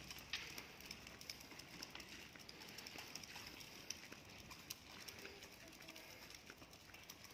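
Faint, irregular clicking and light rattling of a baby stroller's wheels rolling over grooved concrete.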